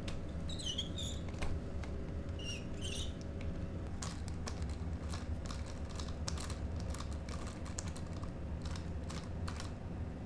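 Light, irregular clicking and knocking of a WLtoys 124018 RC buggy's plastic and metal parts, wheels and suspension as it is handled and turned over, with two short high squeaks in the first three seconds and a steady low hum underneath.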